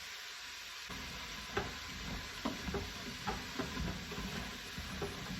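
Vegetables sautéing in a pot, sizzling, while a spoon stirs them; from about a second in the stirring scrapes and gives several irregular knocks against the pot.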